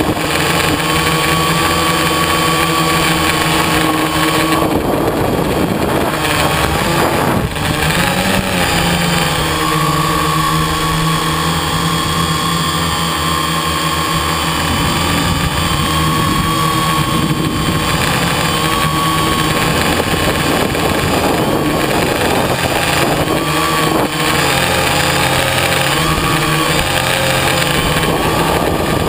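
Quadcopter's electric motors and propellers heard from its onboard camera: a loud, steady whine of several tones whose pitch wavers slightly as the throttle changes.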